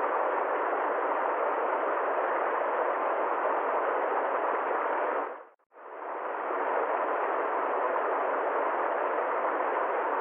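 A steady, even rushing noise, with no deep bass or high hiss, that briefly fades out to silence about five and a half seconds in and fades straight back.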